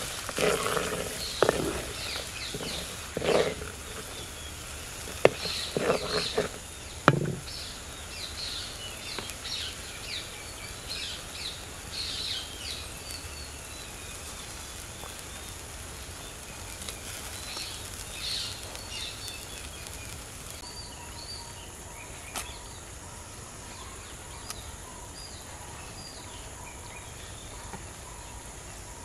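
A spatula stirring, scraping and knocking against a clay cooking pot, with a few sharp taps, for about the first seven seconds. After that there is a steady low background with birds chirping in short repeated calls.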